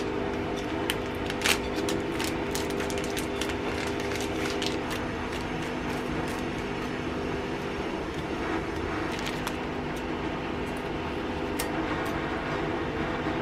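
Paper crinkling and tearing in small crackly clicks as a drip-bag coffee sachet is torn open and its paper filter unfolded and hooked onto a mug. Under it runs a steady low hum with a few held tones.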